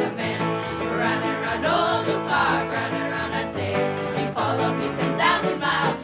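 A live string band playing country/bluegrass music: fiddles over strummed acoustic guitar with a low bass line.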